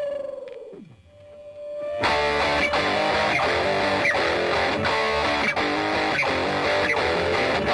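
Rock music led by electric guitar: a held note slides down in pitch and fades, then a new note swells in and the full band with drums comes in about two seconds in, keeping a steady beat.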